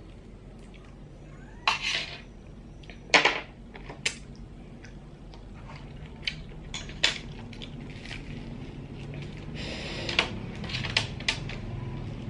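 Small sea-snail shells and a toothpick clicking and clattering against each other and the metal tray as the snails are picked up and picked at, in irregular sharp clicks, the loudest about two and three seconds in.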